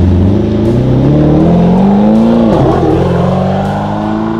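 Twin-turbo C8 Corvette's LT2 V8, through a titanium cat-back exhaust, accelerating away: the engine note climbs steadily, drops sharply for a moment a little past halfway at a gear change, then climbs again.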